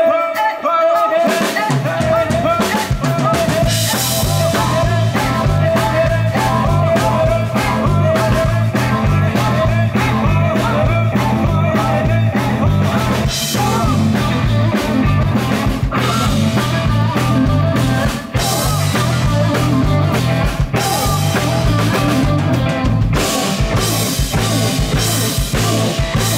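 Live rock band playing with electric guitar, bass, keyboards and drum kit. A held tone opens it, then bass and drums come in about two seconds in with a steady driving beat.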